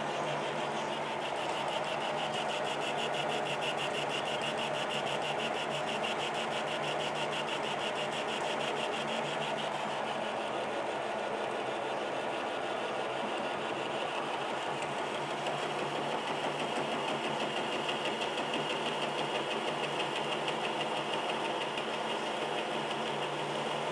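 Metal lathe running: its motor, headstock gearing and spinning chuck give a steady mechanical drone. Over it, a fast, even ticking rattle comes and goes.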